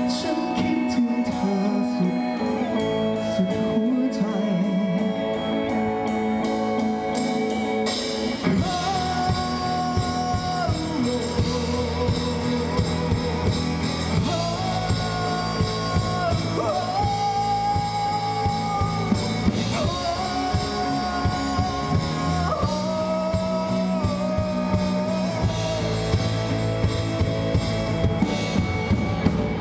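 Live rock band playing a song with a male singer, electric guitar, electric bass and drum kit. The first stretch is lighter, and the full band with drums comes in about eight seconds in, with long held melody lines over it.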